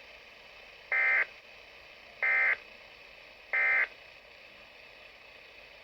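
Three short bursts of weather radio SAME digital data tones, a rasping electronic warble, about a second apart. The bursts are each about a third of a second long, short enough to be the end-of-message code that closes a broadcast alert.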